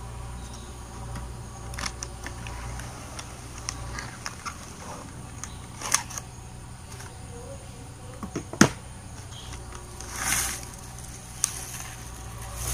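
Corn flakes cereal box opened by hand and its foil inner bag pulled out and handled: scattered crinkles and clicks, a sharp snap about eight and a half seconds in, and a short burst of rustling about ten seconds in.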